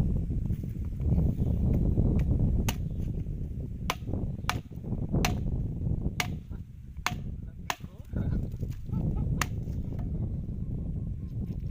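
Sharp wooden knocks, about eight at irregular intervals, over low rustling handling noise, as small wooden sticks are worked while setting up a bird snare.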